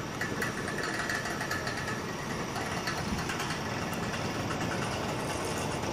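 Alsthom diesel-electric locomotive's engine running steadily with a low rumble, a faint high whine over it for the first couple of seconds.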